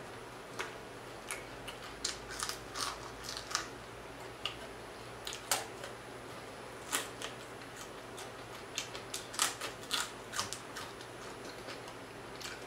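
Close-up eating sounds of fried croaker fish picked by hand: irregular crisp crunches, lip smacks and wet mouth clicks as small pieces are put in the mouth and fingers licked.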